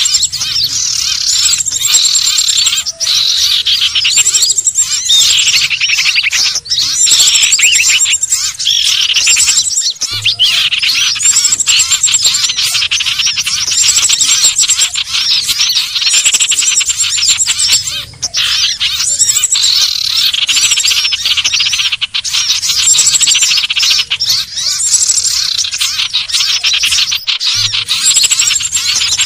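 Lure recording of common iora (sirtu/cipoh) calls: a dense, continuous run of fast chattering and whistled notes, with a high trill recurring every few seconds and two brief breaks.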